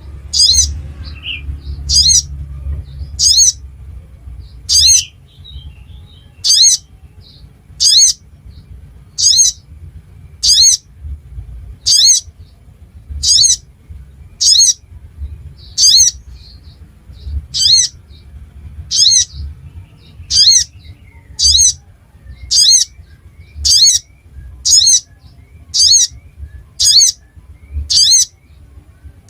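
Little spiderhunter (sogok ontong) giving a single sharp, high call over and over at a very even pace, about one every second and a half, with a faint low hum underneath.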